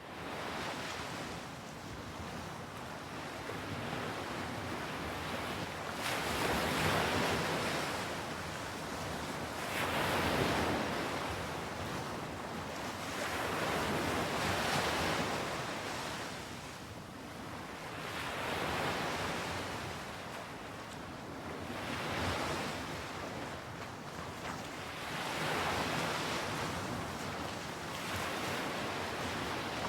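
Ocean surf: a steady rush of water noise with waves swelling and washing in about every three to four seconds.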